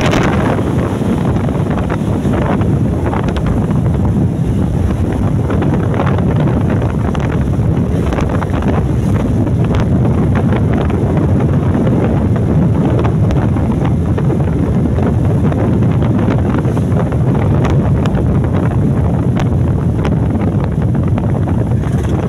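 Loud, steady wind rush on the microphone of a phone held up on a moving motorcycle.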